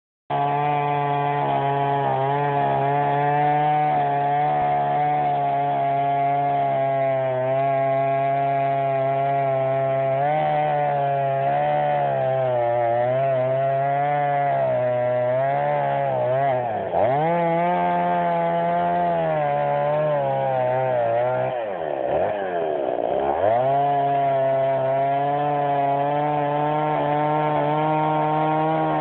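Two-stroke chainsaw running at high revs in a steady drone. Twice, about 16 and 22 seconds in, its pitch drops sharply and then climbs back.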